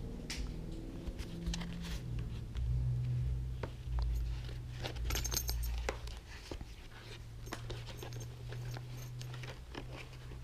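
Hands handling a motorcycle helmet's fabric cheek pad and plastic shell: scattered light rustles, small clicks and taps, over a low steady hum.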